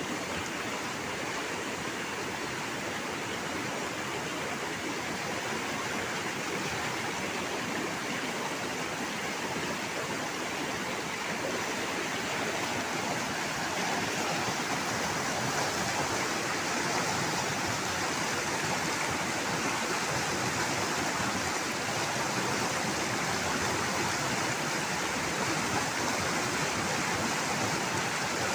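Shallow, rocky river rushing over stones: a steady wash of flowing water, a little louder from about halfway through.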